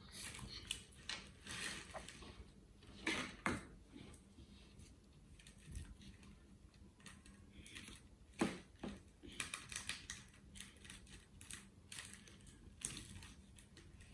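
Faint, irregular rustling, clicks and taps of hands handling small craft pieces and pressing them onto a cardboard face plate, with a few louder crinkles about three seconds in and again about eight and a half seconds in.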